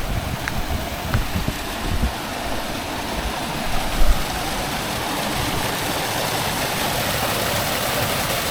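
Waterfall water cascading over rocks at low flow, a steady rushing hiss heard on a camera's built-in microphone, with low buffeting on the microphone during the first few seconds.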